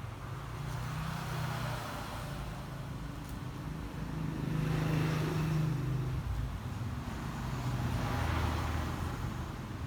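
Road traffic going past: a steady engine rumble that swells and fades three times as vehicles pass.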